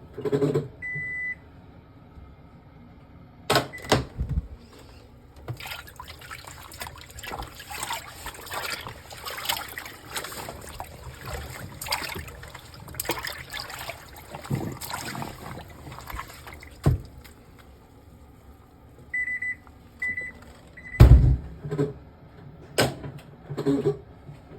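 Washing machine sounds: a short electronic beep, a couple of sharp knocks, then about ten seconds of running, sloshing water with irregular clicking. Near the end come a few more beeps and a heavy thump.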